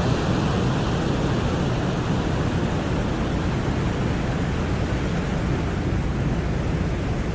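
Steady, dense rushing noise, heaviest in the low end, with no tones or separate events. It is presented as a Soviet probe's recording of the harsh winds on the surface of Venus.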